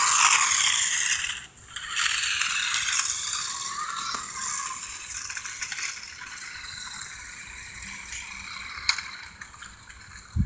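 New Bright toy RC car driving, a noisy rattle of its plastic body and wheels running over the ground. It is loudest in the first few seconds, then fades.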